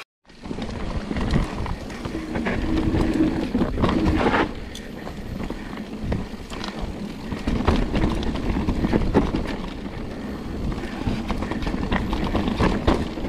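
A mountain bike being ridden down a dirt trail: a steady rumble of tyres and wind on the microphone, broken by frequent rattles and clacks from the bike over bumps.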